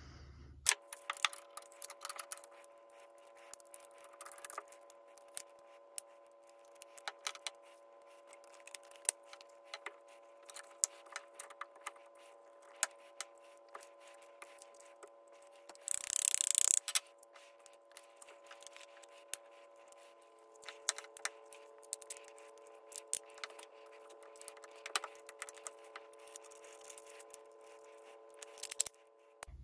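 Sped-up clicks, taps and clatter of a Hi-Point 995TS 9mm carbine's polymer and steel parts being handled and fitted together during reassembly, over a faint steady hum of several tones. A louder scraping rush of noise lasts about a second, midway through.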